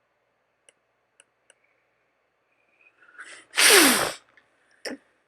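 A person sneezing once, loudly, with a short in-breath just before it and a brief sniff or breath after it. A few faint clicks of Lego pieces come before the sneeze.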